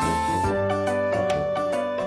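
Instrumental background music with a run of plucked or struck notes over held bass tones.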